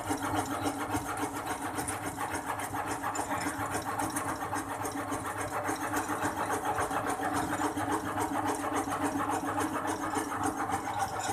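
Tobacco-leaf sewing machine running steadily: a motor hum with a rapid, even clatter from the stitching mechanism.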